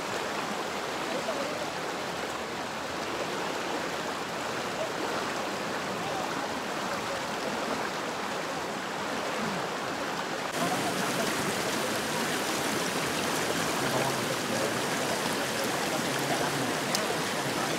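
River rapids rushing over rocks: a steady churning water noise that gets louder and hissier about ten seconds in.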